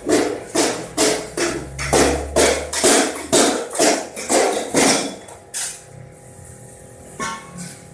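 Hammer striking a steel beam: a steady run of about a dozen sharp metallic blows, roughly two and a half a second, then a pause and two lighter taps near the end.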